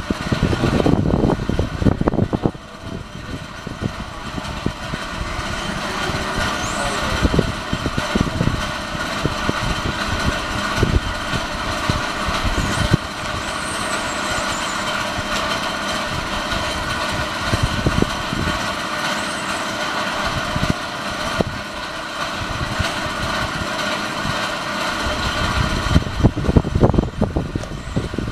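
Team Associated RC10B6.1D electric 1/10 buggy with an 8.5T brushless motor running laps on a dirt track, heard from a distance over a steady hum. Low rumbling comes and goes and is strongest near the start and near the end.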